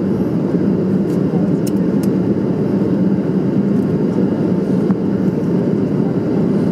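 Steady cabin noise inside a Boeing 737-700 on approach with its flaps extended: the rush of airflow and the drone of its CFM56-7 engines, with a steady low hum.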